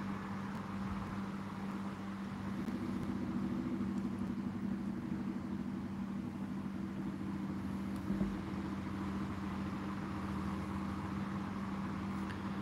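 Steady low hum over even background noise, with a faint knock about eight seconds in.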